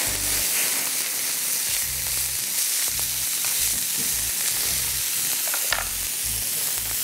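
Beef steak frying, a steady sizzle with no break.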